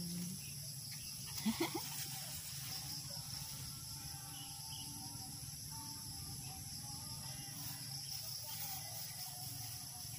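A short animal cry, dipping then rising in pitch, about a second and a half in, followed by a faint steady background with a thin high hiss.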